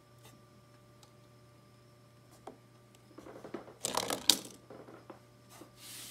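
A plastic Bakugan ball rolling and rattling across a cloth play mat, with one sharp plastic snap about halfway through as it springs open into its figure on the magnetic card. A short soft brush of a hand over the card follows near the end.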